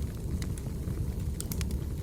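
Firewood burning with a steady low rumble and scattered sharp crackles and pops, a few in quick succession about three quarters of a second in.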